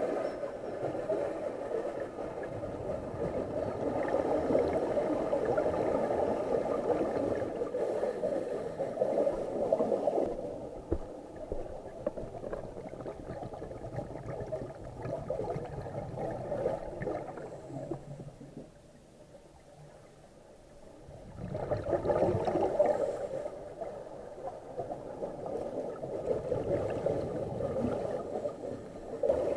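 Scuba regulator exhaust bubbles gurgling and rushing past an underwater camera, in long bursts with a near-quiet lull about two-thirds of the way through.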